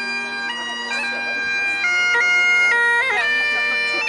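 Highland bagpipe music: a steady drone under a chanter melody that steps between notes, with quick grace-note flourishes.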